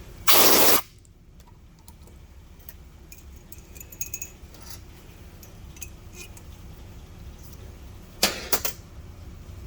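A short loud hiss lasting about half a second, then scattered light metallic clinks and taps of small steel tools and valve parts being handled on a cylinder head, with a quick cluster of sharp clinks near the end.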